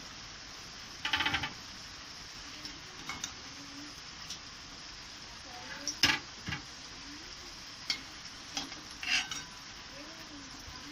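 Spatula scraping and knocking against a kadai while fried potatoes are lifted out of hot oil: a quick rattle of scrapes about a second in and a sharper knock about six seconds in, with scattered lighter clicks. The frying oil sizzles faintly underneath.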